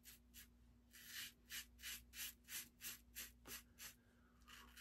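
Double-edge safety razor scraping through lathered stubble in quick short strokes, about three a second, faint and scratchy; the razor is an Aylsworth Apex in stainless steel.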